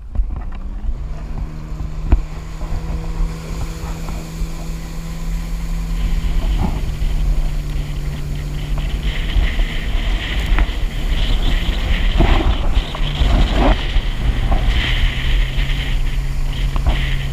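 Jet ski running at speed on a river, its engine holding a steady hum that fades around the middle and returns near the end, with wind buffeting the microphone and a hiss of rushing water and spray from about six seconds in.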